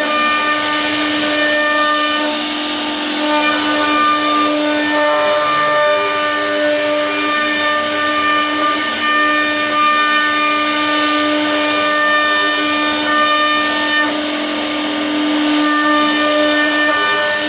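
CNC router spindle running steadily with a high whine, its bit cutting a carved relief pattern into a wooden panel, with the hiss of wood being cut underneath.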